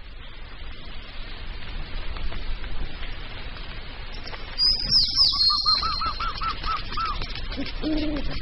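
Nature ambience: a steady hiss fades in. Midway come high falling whistles and a fast trill of about nine notes from a bird, and near the end two low owl hoots.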